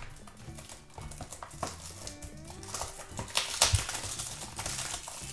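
Background music under the crinkling, clicking and scraping of a small cardboard surprise box handled and opened by hand, with one sharp crackle about three and a half seconds in.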